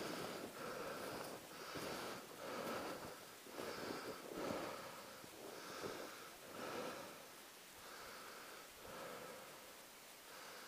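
Footsteps crunching through snow at a steady walking pace, about three steps every two seconds, growing a little fainter toward the end.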